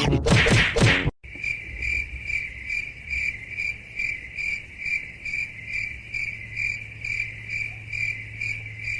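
A loud, noisy burst that cuts off abruptly about a second in, then a cricket chirping steadily, about three even chirps a second, over a low steady hum.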